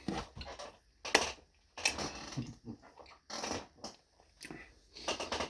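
Close-up chewing and mouth noises of a person eating pizza with a full mouth, in irregular short bursts.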